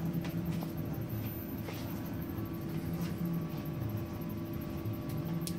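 Hyrel Hydra 3D printer's stepper motors moving the SDS-30 syringe dispensing head across the gantry, in several short moves over a steady tone, with a few light clicks.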